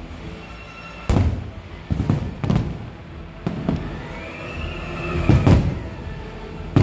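Aerial fireworks shells bursting with sharp booms, about nine of them, several in quick pairs. The loudest pair comes about five seconds in. Show music plays underneath.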